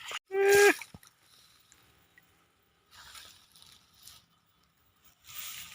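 One short, loud cattle call near the start, dipping in pitch at the end, followed by faint splashing.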